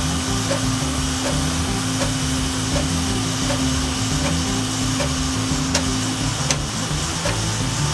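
Epson L3110 inkjet printer printing a photo: the print-head carriage shuttling and the paper feeding out make a steady mechanical whir with light regular ticks. A steady hum in it stops about six seconds in.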